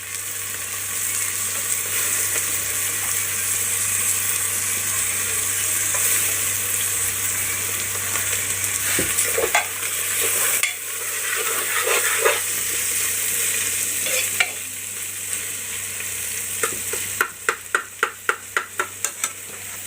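Cashews, almonds and raisins sizzling as they fry in ghee in a pan, stirred with a spoon. Near the end the spoon strikes and scrapes the pan in quick, regular strokes, about four a second.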